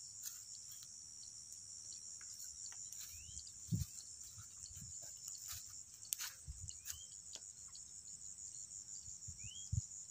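Insects chirring steadily in a high band, with a few short rising bird chirps. A few low thumps come through, the loudest about four seconds in.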